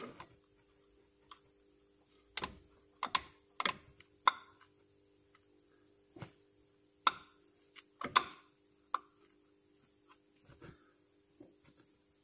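About ten sharp clicks and knocks at irregular intervals as the crankshaft pulley of a SsangYong Actyon turbodiesel is pressed and rocked by hand with the drive belt off. The pulley shifts on its seat, which the owner takes for a loose crankshaft pulley, the cause of the belt's squeal.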